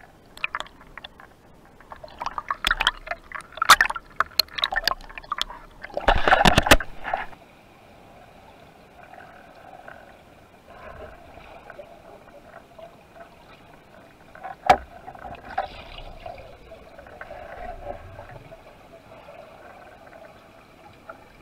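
Water sounds picked up by an underwater action camera: splashing and bubbling with many sharp clicks over the first several seconds, loudest in a dense rush of bubbles about six seconds in. After that comes a steady, quieter underwater hiss with one sharp click in the middle.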